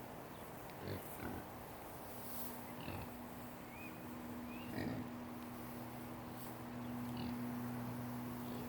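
Hogs grunting several times, short separate grunts over a steady low hum.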